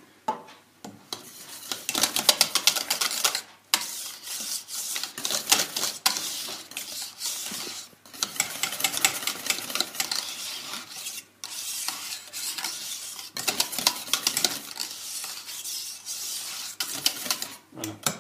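Wire whisk beating thick, freshly cooked crème pâtissière in a stainless steel saucepan, its wires rapidly clicking and scraping against the pan. The whisking comes in fast runs with short pauses every few seconds.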